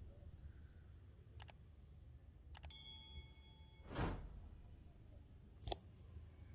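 Faint low outdoor rumble, broken by three short breathy whooshes and two sharp clicks. About three seconds in, a brief metallic ding rings with several clear tones.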